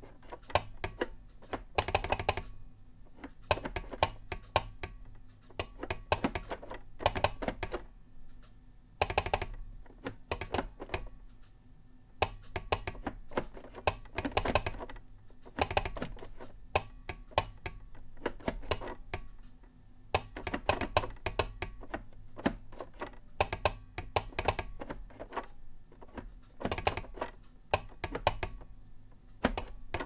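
Telegraph key being tapped out in Morse code: irregular runs of sharp clicks from the steel lever striking its contact, grouped into letters with short pauses between them.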